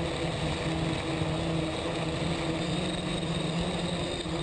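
Steady motor hum with a constant low pitch and a faint high whine above it, unchanging throughout.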